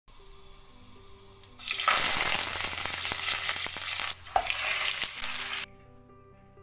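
Hot oil sizzling loudly as cumin seeds, whole spices and onions fry in a pot. The sizzle starts about a second and a half in, dips briefly with a click around four seconds, and cuts off sharply near the end, over soft background music.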